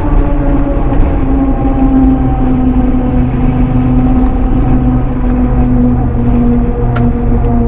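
Daihatsu Hijet Climber kei mini truck's small three-cylinder engine running as the truck drives along, heard from inside the cab with road rumble. The engine note slowly falls in pitch, and a few light ticks come near the end.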